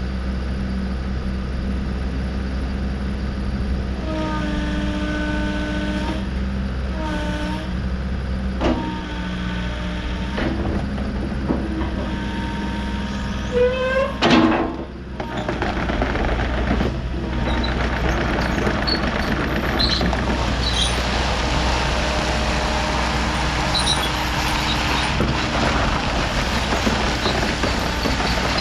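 Volvo ECR88D midi excavator's diesel engine running steadily, with held hydraulic whines that come and go as the machine is worked. About halfway through a whine rises in pitch with a brief loud burst, and after that the sound grows busier and noisier, with small metallic clinks.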